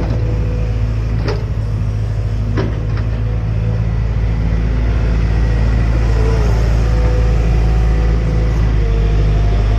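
Hydraulic excavator's diesel engine running with a steady deep drone. Three short sharp clicks come in the first three seconds.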